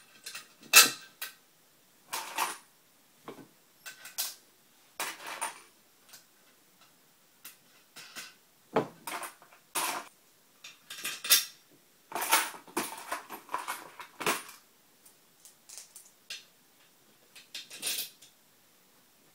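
Metal hardware (bolts, washers and nylock nuts) clinking and rattling as it is handled and fitted by hand into a drilled aluminium angle bar: a string of short, irregular clinks and scrapes with small pauses between them.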